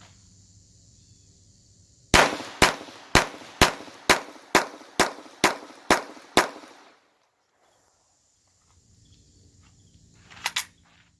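Ten shots from a Glock 44 .22 LR pistol fired at a steady pace, about two a second, each a sharp crack with a short ring after it. Near the end come two more sharp cracks in quick succession.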